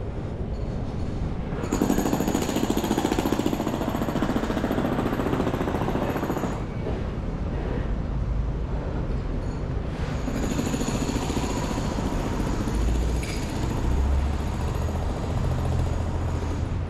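Pneumatic jackhammer hammering in two long bursts, the first from about two seconds in to six and a half seconds, the second from about ten seconds in to near the end, over a steady low city rumble.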